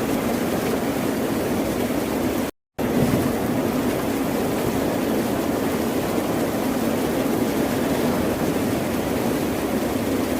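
Ocean waves washing on a shore, a steady rushing surf noise. About two and a half seconds in, it cuts out to silence for a split second, then resumes.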